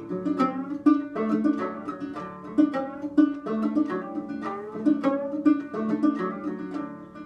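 Gourd banjo played clawhammer style: an instrumental break of sharply plucked notes in a steady rhythm.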